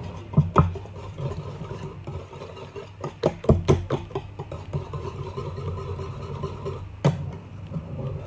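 Wire whisk beating egg into mashed banana in a bowl: a continuous scraping and slapping of the wires through the batter, with sharper clicks of the whisk knocking the bowl, several together about three seconds in. A steady low hum runs underneath.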